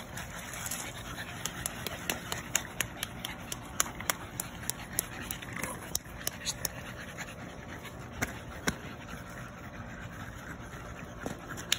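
French bulldogs panting, with many short sharp clicks scattered irregularly through.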